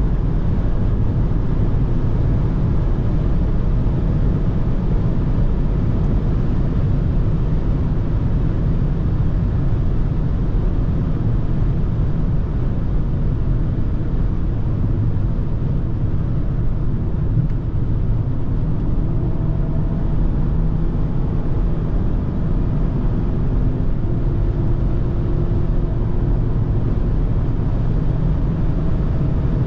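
Cabin noise of a 2021 BMW X2 xDrive20i cruising at about 180 km/h: steady wind and tyre rush over the low drone of its 2.0-litre four-cylinder engine.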